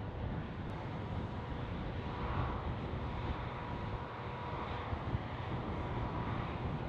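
Wind rumbling on the microphone over a steady distant machinery hum, with a faint high whine held steadily through it.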